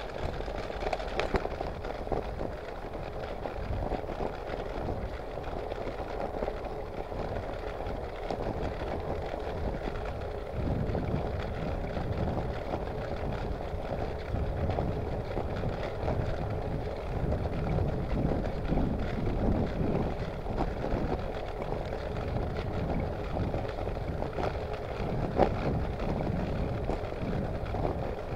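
Riding a bicycle, heard from a handlebar-mounted camera: tyres rolling on a rough lane and wind buffeting the microphone, with a few short rattling clicks from the bike. The low wind rumble grows louder about ten seconds in, and a sharp click comes near the end.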